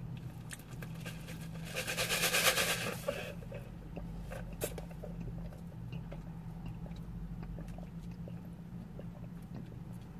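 Drink sucked up through a straw from a large fountain cup, with a noisy slurp about two seconds in lasting over a second, then a few small clicks of sipping. A steady low hum runs underneath.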